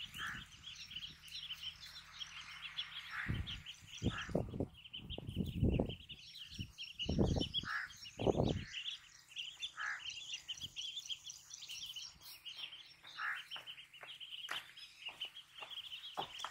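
A flock of ducklings peeping: a dense, continuous chatter of short high chirps, with a louder call every second or two. A few short low rumbles come in the first half.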